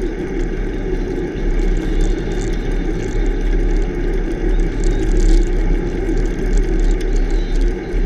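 Bicycle riding noise at speed: steady wind buffeting on the bike-mounted microphone mixed with the tyres rumbling over a rough highway shoulder, with faint ticks on top.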